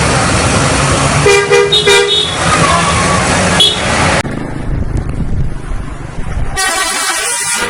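Bus 'telolet' musical horn sounding a quick run of short notes about a second in, over a steady low rumble. The sound changes abruptly about four seconds in, and another bright multi-note horn blast starts near the end.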